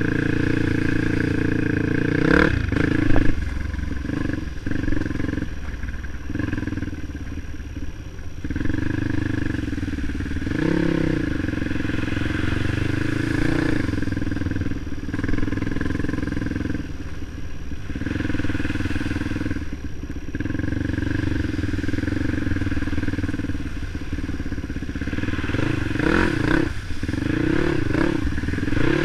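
Off-road motorcycle engine running on a trail ride, its note rising and falling with the throttle, with a few sharp knocks about three seconds in.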